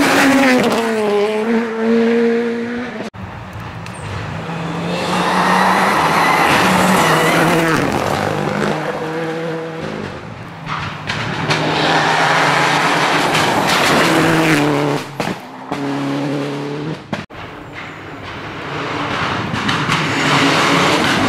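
Rally cars at racing speed on a tarmac stage, one after another. Each engine note rises and falls with gear changes and lifts as the car approaches and passes close by. The sound breaks off sharply twice.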